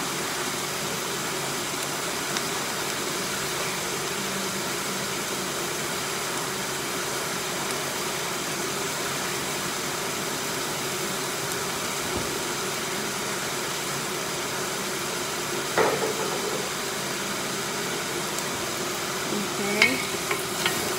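Steady sizzling of aromatics caramelizing in a wok. There is one knock about three quarters of the way through and a few sharp clinks of kitchenware near the end.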